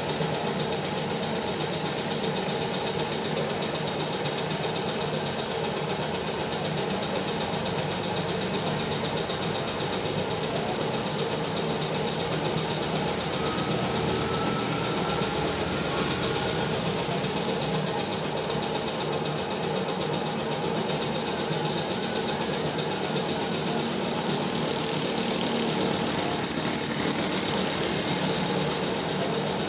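An air compressor running steadily, with the hiss of a gravity-feed paint spray gun spraying a motorcycle fuel tank.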